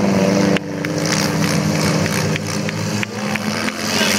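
Small cars' engines running steadily, with several short sharp knocks over the top. The sound drops a little about half a second in.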